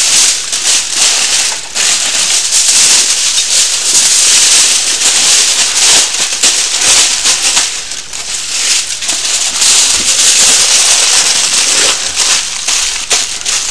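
Aluminium foil being crumpled and crinkled by hand as it is wrapped and pressed tightly around a chicken on a rotisserie spit: a loud, dense, continuous crackle, easing slightly near the end.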